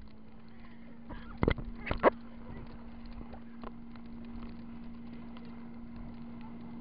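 Inflatable tube being towed over boat wake, heard through an action camera mounted on it: a steady low hum and muffled rushing, broken by two heavy knocks about a second and a half and two seconds in as the tube slams the water.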